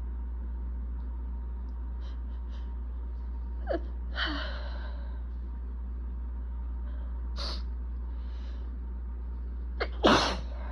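A person's allergy sneezing fit: gasping intakes of breath and several sneezes, the loudest sneeze near the end.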